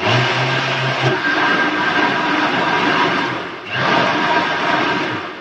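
Panasonic electric blender (mixer-grinder) running at speed, churning a thick mango and cream mixture; the motor note dips briefly about three and a half seconds in, then picks up again.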